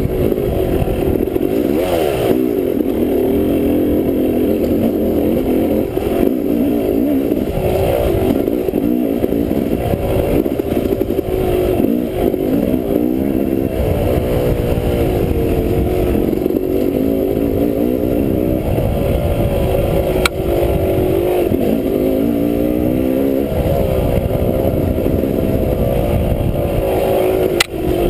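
Dirt bike engine under way on a rough trail, its pitch rising and falling again and again as the throttle is worked on and off. Two sharp knocks, one about two-thirds of the way through and one near the end.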